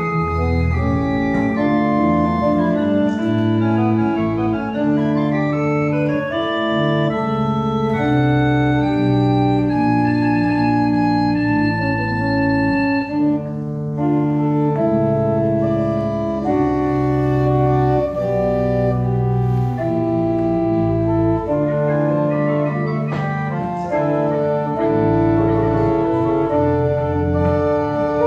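Pipe organ of the Juodkrantė Evangelical Lutheran Church played in an improvisation: sustained chords and held notes that change every second or so, over low bass notes.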